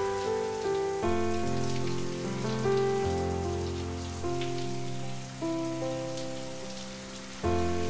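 Slow music of sustained chords, a new chord struck every second or two and fading away, over a steady hiss of running water.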